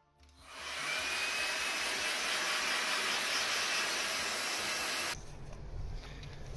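Handheld electric heat gun running: a steady fan rush that builds up over about half a second and cuts off suddenly about five seconds in, then a low rumble takes over.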